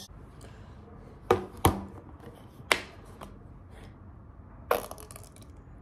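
A few sharp clicks and knocks as a plastic ketchup squeeze bottle is handled, then a short squirt as it is squeezed, about three-quarters of the way through.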